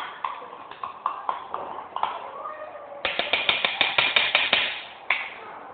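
Sticky detergent slime being stirred and worked in a pot: scattered wet clicks and squelches, turning into a louder, rapid run of clicking about three seconds in that stops about two seconds later.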